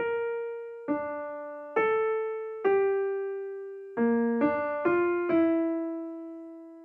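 Background music: a slow electric piano melody played one note at a time, each note fading away. It starts abruptly from silence and runs at about one note a second, quickening to a short run of notes about four seconds in.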